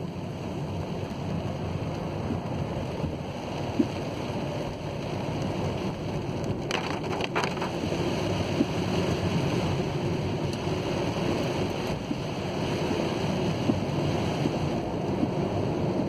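Road noise inside a car's cabin on a wet road: a steady rumble and hiss from the engine and tyres, with a few sharp ticks every few seconds.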